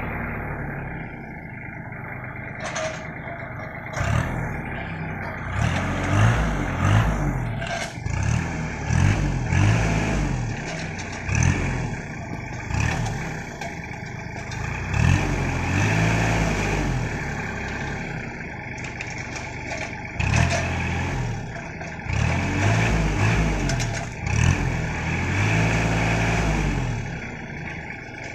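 Kubota L3200 tractor's three-cylinder diesel engine running and revving up and down again and again, several rises and falls of a second or two each, as it drives the hydraulic crane grabber loading oil palm fruit bunches.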